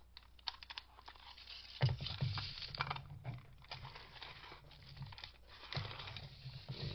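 Handling noise from a Spencer logger's tape being turned in the hands as its spring is wound: irregular clicks, scrapes and rubbing from the metal case. A low rubbing rumble joins in about two seconds in.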